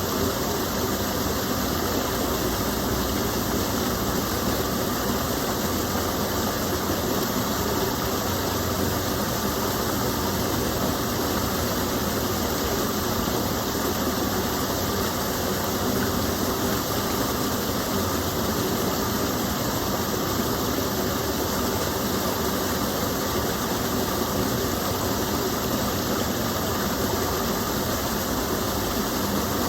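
Small stream of water falling and flowing, a steady, even rush with no breaks.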